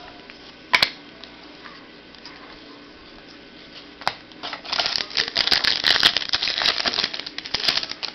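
A trading-card pack being handled and opened by hand: a sharp tap about a second in, then a dense run of crinkling and crackling of the pack wrapper and cards from about halfway through to near the end.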